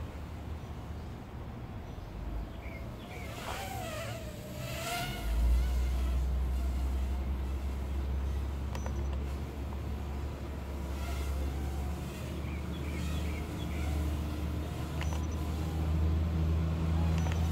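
Thin insect-like buzz of a Blade Nano QX micro quadcopter's motors, under a steady low rumble that comes in about five seconds in and stays the loudest sound. A short wavering pitched call is heard near four seconds.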